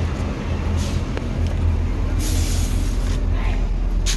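Intercity coach bus's diesel engine idling with a steady low rumble, heard from the doorway and cabin. A short hiss rises over it about two seconds in.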